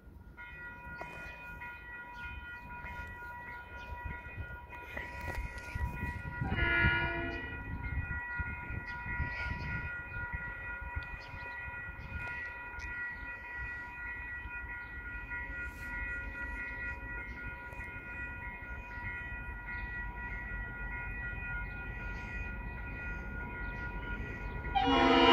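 KiwiRail DXR-class diesel-electric locomotive approaching, its low rumble slowly growing under a steady high whine. It sounds its horn in a short blast about seven seconds in, then starts a loud horn blast near the end.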